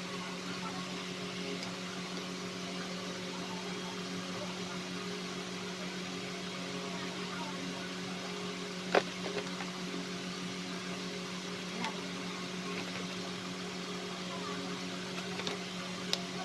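Steady machine hum with a low, unchanging tone, and a single sharp click about nine seconds in.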